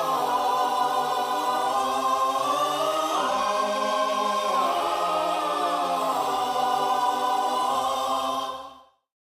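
Background music of sustained chords that shift slowly, fading out to silence near the end.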